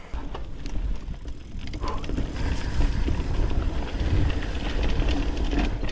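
Mountain bike rolling fast over rough trail: a steady loud rumble of tyres and frame, with constant clicking and rattling as the bike jolts over roots and rocks. It starts suddenly as the bike gets going.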